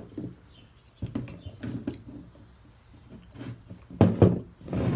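Pipe clamps being handled: a series of short knocks and clatters, loudest about four seconds in.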